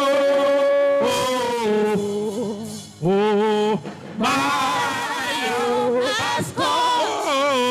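A voice singing a slow worship chant in long, held notes with vibrato, pausing briefly between phrases.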